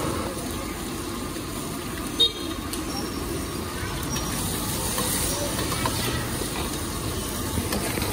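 Street wok cooking: a steady roar and hiss from the wok station, with a single sharp metal clank about two seconds in.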